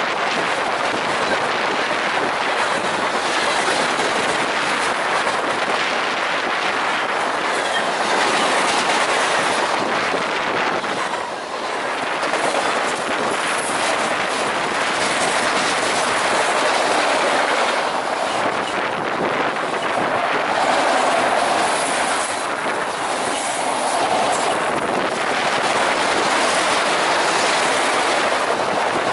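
Freight cars of a passing freight train, covered hoppers and then autoracks, rolling by in a steady stream of wheel-on-rail rumble and clatter.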